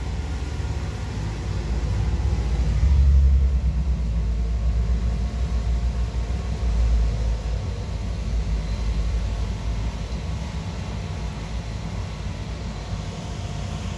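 Low, steady rumble of idling vehicle engines, with wind buffeting the microphone in heavy gusts about 3 and 7 seconds in.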